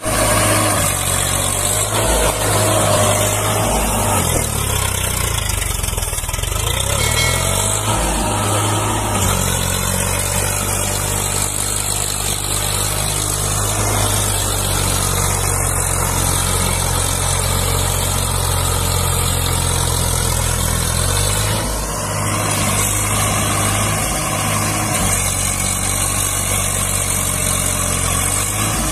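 Swaraj 744 4WD tractor's three-cylinder diesel engine running under load as it hauls a loaded trolley through deep mud. The engine note dips and rises a few times early on, between about three and nine seconds in, and briefly again around twenty-two seconds.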